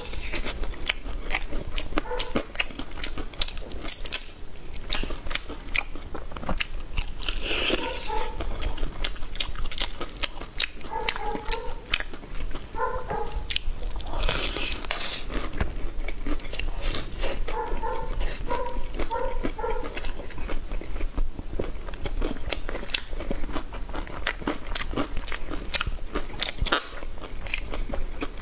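Close-miked eating: crunchy bites and chewing, a rapid run of crackly clicks.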